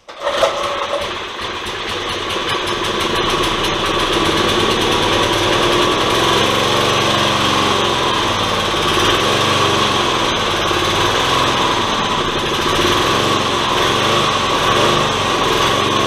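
Old Briggs & Stratton small engine is recoil-started about half a second in and keeps running, the pitch wavering a little. It is an old engine firing up and running after its air, spark and fuel were checked.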